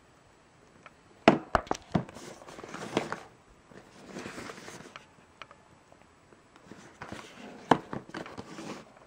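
A cardboard product box with a clear plastic window being handled and turned over on a wooden table: a few sharp knocks and taps about a second in and again near the end, between stretches of rustling and scraping packaging.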